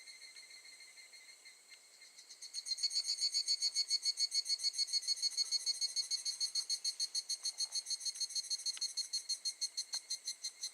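Higurashi (evening cicada, Tanna japonensis) calling: a fast, even pulsing trill that starts about two seconds in and weakens near the end. Under it is a fainter steady high ringing.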